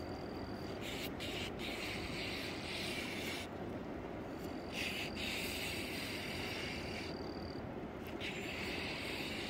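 Outdoor riverside ambience: a steady low rush of wind and water under a high, thin insect chorus. The chorus comes and goes in spells of one to three seconds, about three times.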